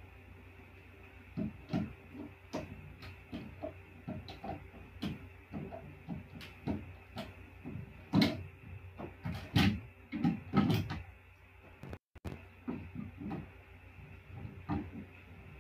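Handling noises close to the microphone: irregular knocks, taps and clicks over a faint steady hum, loudest about eight to eleven seconds in. A brief dropout cuts the sound completely about twelve seconds in.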